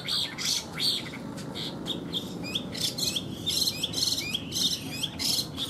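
Caged Chinese hwamei (họa mi) chirping: a fast run of short, high chirps, about three or four a second, with some short falling notes mixed in.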